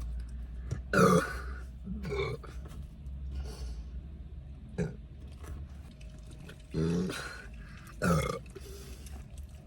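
A woman burping again and again, with several separate burps: a loud one about a second in, smaller ones after, and two long ones near the end. A steady low rumble from the car runs underneath.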